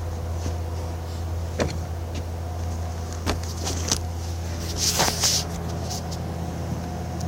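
Steady low machine hum, with a few scattered sharp metal taps and a short scraping sound about five seconds in.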